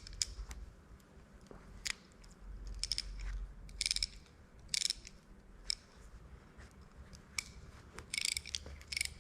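Small steel parts of an old Snap-on ratchet wrench clicking and clinking as they are fitted back together by hand. There are scattered single clicks and a few short bursts of ringing clinks, about a second long, at irregular intervals.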